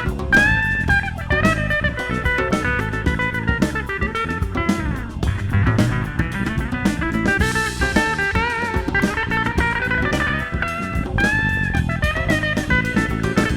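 Live band playing an instrumental break: a guitar lead with bent, gliding notes over a drum kit beat.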